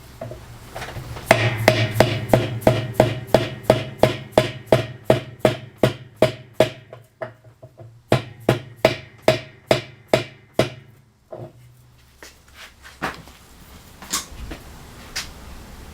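A hammer striking a spanner wrench to tighten the spanner nut on a Whirlpool direct-drive washer's basket drive: sharp metallic strikes with a ringing tone, about three a second. There is a short pause about halfway through, the run stops about 11 seconds in, and a few lone knocks follow.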